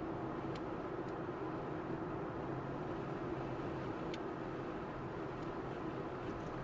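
A car driving along a highway: steady road and engine noise with a low hum, and a few faint ticks.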